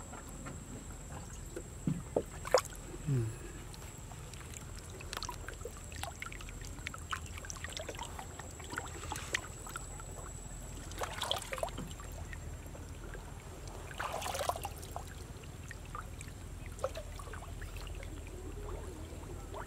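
Shallow pond water splashing and sloshing as a person wades and moves a woven bamboo basket through it, with scattered small clicks and two short louder splashes, about halfway through and again a few seconds later.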